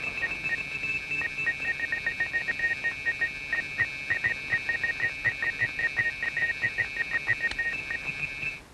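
Electronic space-flight sound effect from a moon-flight film: a steady high tone with rapid, irregular bleeps a little lower in pitch, both cutting off abruptly near the end.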